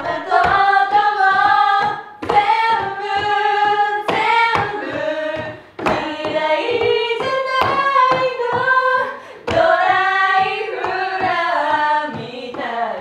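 Several young women singing together in one voice, with held notes, while clapping their hands along in a steady beat.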